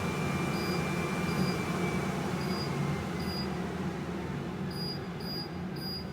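Aerovex Whisper source-capture fan running steadily near full speed, then slowly getting quieter as its fan speed is turned down. Short high beeps sound several times as the setting is stepped down.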